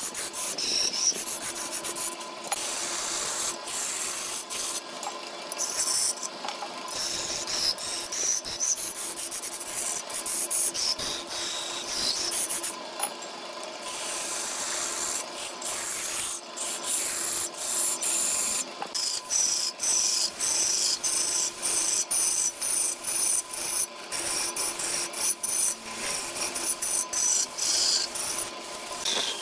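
A wooden vase blank spinning on a lathe being sanded by hand: a steady hissing rub, broken by many brief gaps as the pressure comes off, over a faint steady hum.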